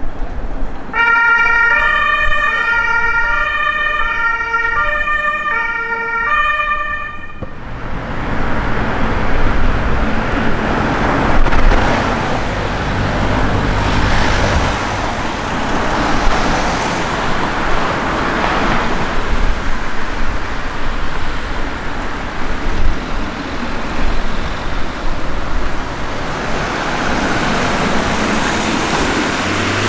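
An emergency vehicle's two-tone siren (German Martinshorn) switches back and forth between two pitches for about six seconds, then cuts off. After it, a vehicle engine and road noise fill the rest, swelling louder at times.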